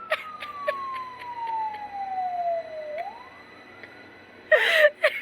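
A siren-like wail: one tone sliding slowly down for about three seconds, then rising back up. Near the end, short whimpering bursts of a woman's voice break in.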